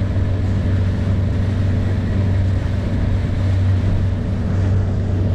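Small boat's outboard motor running steadily under way: a constant low drone over an even rushing hiss.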